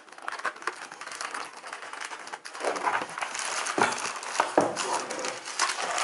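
Thin tissue wrapping paper crinkling and rustling as hands grip the wrapped keyboard and lift it from its box. The crinkling grows louder about two and a half seconds in.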